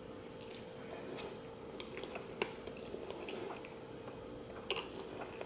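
Soft, wet eating sounds of thick noodles in spicy tteokbokki sauce being slurped and chewed: scattered small smacks and squishes over a faint steady hum.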